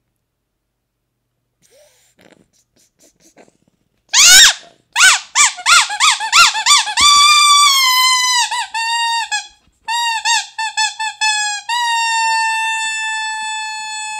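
Large rubber duck squeezed again and again, its squeaker starting about four seconds in with a quick run of short squeaks that swoop up and down, then longer held squeaks that sag slightly in pitch, the last one lasting over two seconds.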